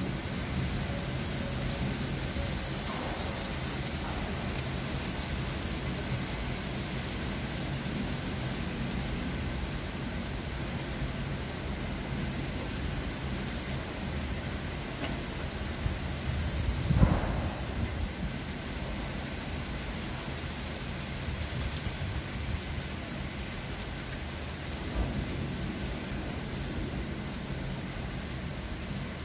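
Steady rain falling on a wet paved court and plantings, an even hiss throughout. A little past halfway a brief, louder low rumble rises over the rain, with a smaller one later.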